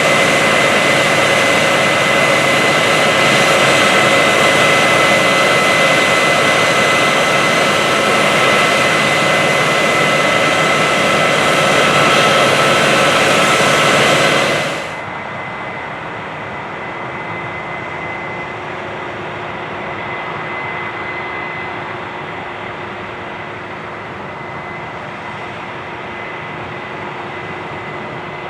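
Big Case IH harvest machinery running steadily: a loud engine-and-fan rush with a thin high whine. About halfway through it drops suddenly to a quieter, duller machine drone.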